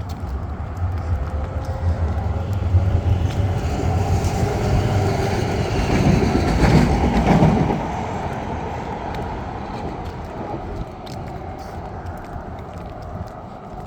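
Road traffic going by, with one vehicle passing close and loudest a little past halfway before the sound drops away.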